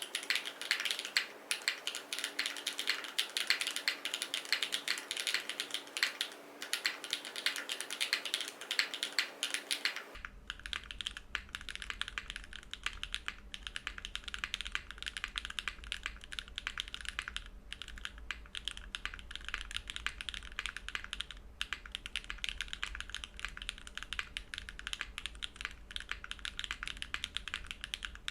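Continuous fast typing on a Vertex Arc60 mechanical keyboard with JWK Catmint switches in an aluminium plate, no foam, and GMK keycaps. About ten seconds in, the sound turns slightly duller and a low hum appears beneath the keystrokes.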